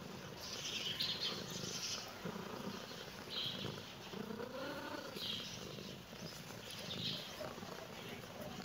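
Small birds chirping on and off, with one soft rising-then-falling meow from a domestic cat about halfway through.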